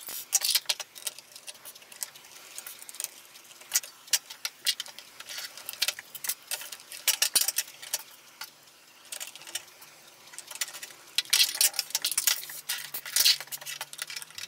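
Small screwdriver working the screws of a hard drive, out of a metal drive sled and into a plastic drive caddy: irregular light clicks and metallic clinks of the screwdriver tip, loose screws and brackets being handled. The clicking is busiest at the start and again near the end.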